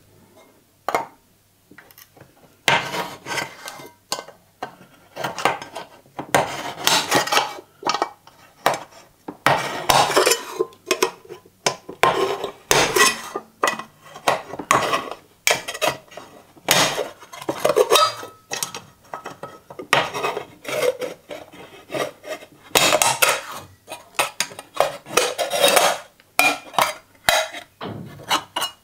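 Lever-type can opener on an old Soviet multitool punching and levering its way around the rim of a tin can, short metallic cutting strokes one after another from about a second in.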